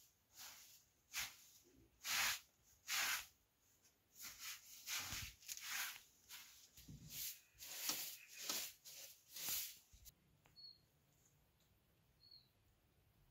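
Straw broom sweeping a carpeted floor: a series of brushing swishes that stop about ten seconds in. A few faint, short, high chirps follow near the end.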